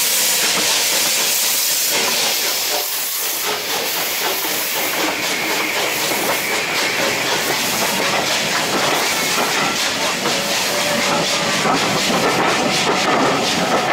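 Southern Railway Battle of Britain class steam locomotive passing close by with a loud hiss of steam for the first few seconds. Its coaches then roll past, wheels clicking over the rail joints, the clicks coming thicker near the end.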